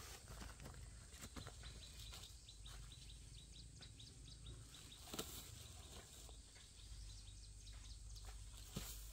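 Faint outdoor country ambience: scattered light clicks and rustles, with a quick run of faint high chirps in the first half. A sharper click comes about five seconds in and another near the end.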